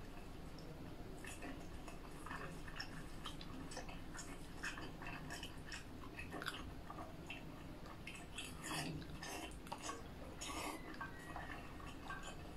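A person eating sauce-coated food with chopsticks: wet chewing, sucking and lip smacks in an irregular string of short sounds, busiest about two-thirds of the way through.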